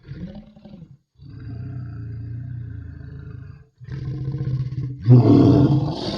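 Sea-monster roar sound effects, four in a row with short gaps: a brief growl that rises and falls in pitch, then a long low growl of about two and a half seconds, a shorter one, and a loudest roar about five seconds in.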